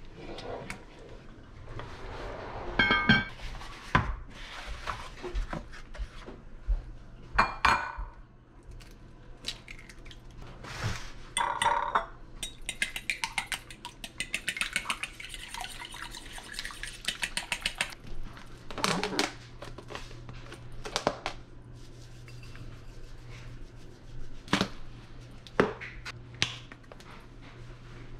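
Kitchen prep sounds: a wooden spoon stirring tomato sauce in a pot, scattered clatters and clinks of dishes, and about halfway through a fork beating eggs against a ceramic bowl, a fast run of light clicks lasting several seconds.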